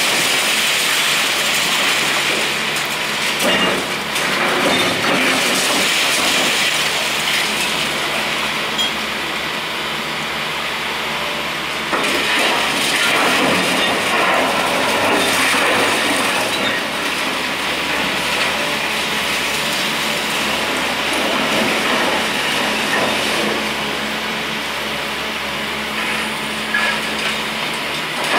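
Liebherr R944 demolition excavator's diesel engine and hydraulics working under load while broken concrete and debris crash, scrape and rattle down from the building it is tearing apart. A steady mechanical din that swells several times, with a few sharper knocks.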